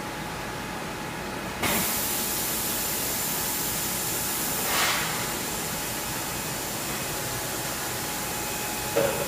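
Compressed air hissing from a CNC machining centre's automatic pallet changer: it switches on suddenly about a second and a half in and keeps blowing steadily, with a brief louder gust about three seconds later and a short clunk near the end, over a steady machine hum.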